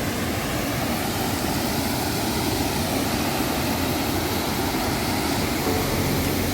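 Steady rushing roar of falling water from a waterfall, loud and even, cutting in abruptly at the start.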